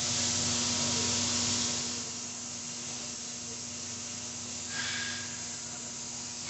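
Compressed air hissing steadily from a leak on an air compressor, over a steady low hum; the hiss is a little louder for about the first two seconds.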